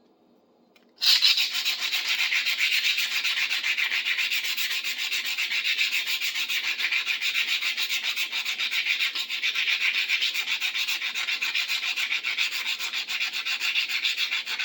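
Sandpaper rubbed by hand over a metal tool, steady quick back-and-forth scratching strokes that start about a second in after a brief hush.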